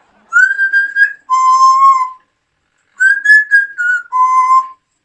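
Pet parrot whistling two short phrases of a tune. Each phrase is a higher held note that steps down into a longer, lower held note; the second phrase follows about a second after the first.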